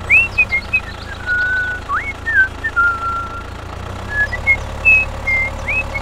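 A string of high whistled notes, some quick rising glides, short chirps and briefly held tones, over a steady low engine hum.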